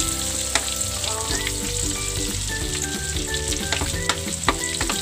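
Pork cubes frying in their own rendered fat in a wok, with a steady sizzle, while a metal spoon stirs the pieces and clicks against the pan several times.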